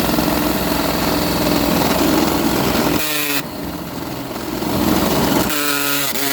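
Power drill boring holes, the motor running steadily under load with the bit grinding through the material; the motor note changes briefly about three seconds in and again near the end.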